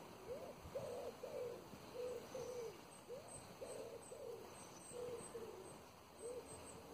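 Pigeon cooing: a run of short, low hoots, each rising and falling in pitch, repeated irregularly about every half second, with faint high chirps from a small bird above.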